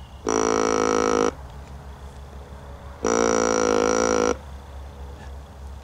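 A deer call sounded twice: two long, steady, nasal calls, the first about a second long and the second a little longer with a slight waver in pitch. Each starts and stops abruptly.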